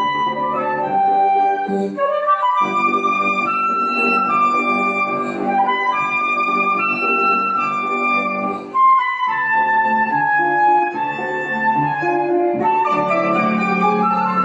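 Flute playing a waltz melody over piano accompaniment, with a brief break in the melody about nine seconds in.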